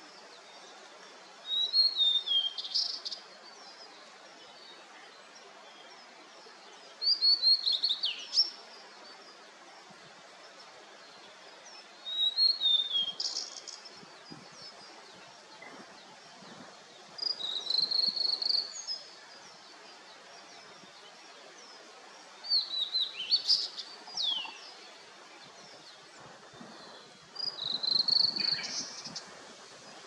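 Male blue-and-white flycatcher singing: six short song phrases, one about every five seconds, each a run of high whistled notes ending in a short harsh note. Under the song is a faint steady hiss.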